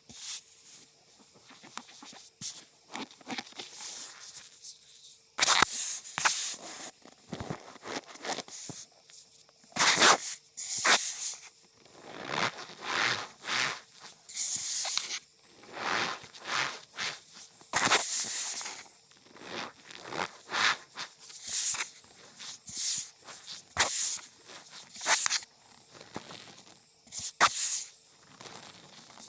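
Cornstarch powder squeezed and pressed by hand, giving squeaky, crunchy bursts in an irregular rhythm of about one every second, some louder than others.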